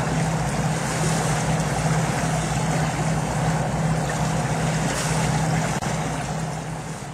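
Boat engine running steadily while under way, a low drone mixed with wind and water noise. The level drops near the end.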